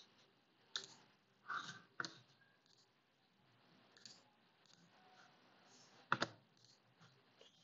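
Computer mouse and keyboard clicks: a few sharp, separate clicks at uneven intervals, the loudest about six seconds in.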